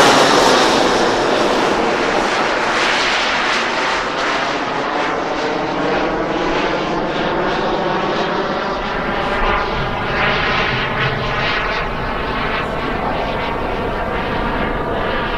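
Model jet turbine of an Elite Aerosports BDX radio-controlled jet, a steady whine of several tones that waver slightly as the jet flies overhead. It eases a little in loudness over the first few seconds after a close pass.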